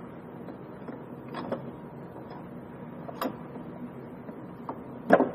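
A few sharp clicks and knocks of plastic and metal parts being worked by hand on a spreader's rate dial holder and linkage, the loudest knock near the end.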